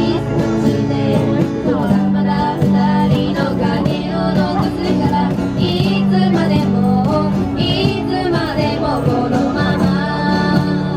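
Live band music: a singer over guitar and bass accompaniment.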